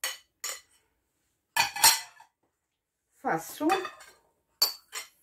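A metal spoon clinking and scraping against ceramic plates and a glass salad bowl as food is scraped off the plates into the bowl, in several short bursts.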